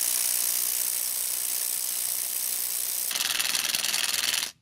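Parkside PASSK20 20 V cordless impact wrench hammering steadily on a car wheel's lug nut as it tightens it. The rapid hammering brightens about three seconds in and stops abruptly about four and a half seconds in.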